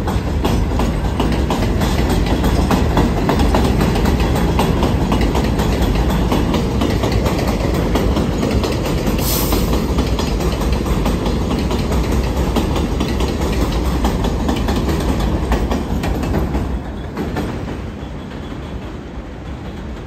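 New York City Subway R62A train on the 6 line running along an elevated steel structure: a loud, steady rumble with rapid clickety-clack of wheels over the rail joints, dropping off about seventeen seconds in as the train moves away.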